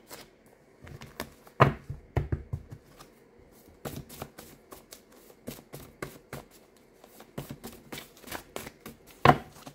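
Tarot cards being shuffled and handled: a run of soft, irregular card clicks and flicks, with a louder snap about one and a half seconds in and another near the end.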